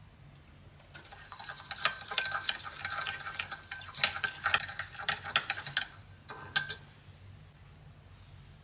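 Metal teaspoon stirring a liquid mixture in a glass bowl, with rapid clinks and scrapes against the glass and a faint ringing of the bowl, for about five seconds. A couple of sharper clinks follow as the spoon is set down in the bowl.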